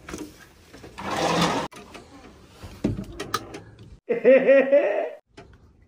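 A sliding door pulled open with a short rushing scrape and a few clicks, followed about four seconds in by a man's rhythmic laugh lasting about a second.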